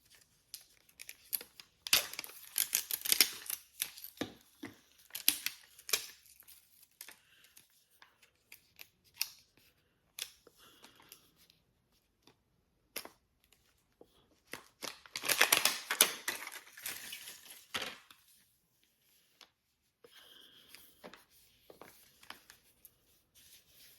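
Miniverse toy packaging being fumbled with and pried at by hand: bursts of crinkling, tearing and sharp clicks of plastic, with short pauses between attempts.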